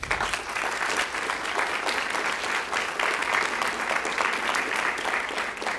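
Audience applauding: dense clapping from many hands that starts at once and holds steady.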